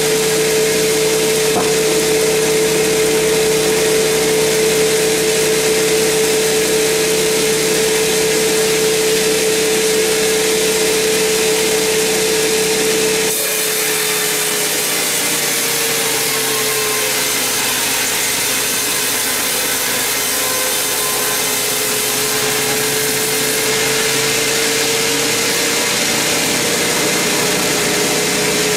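Large sawmill band saw running with a steady high whine. About halfway the sound changes abruptly to the blade cutting through a big mahogany log, the whine sinking lower in pitch and rising back up near the end.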